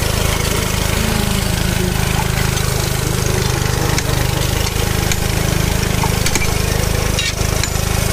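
A small engine running steadily at an even speed, with a few faint clicks near the end.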